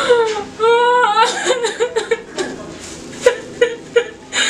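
A woman crying aloud: long wailing cries that bend in pitch, then shorter broken sobs.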